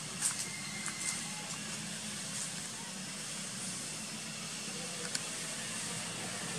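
Steady outdoor background: a low hum with an even hiss, with a few faint ticks.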